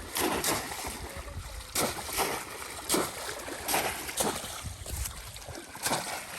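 Water splashing in a shallow river, about eight short sharp splashes at irregular intervals, from wading and bamboo polo traps being worked in the water.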